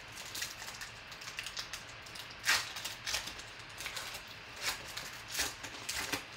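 Foil wrapper of a trading-card pack crinkling and tearing as it is opened by hand, in a run of short crackly rustles, the loudest about two and a half seconds in.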